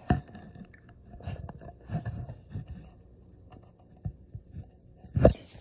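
Irregular knocks and bumps from handling, with a sharp knock just after the start and the loudest one near the end.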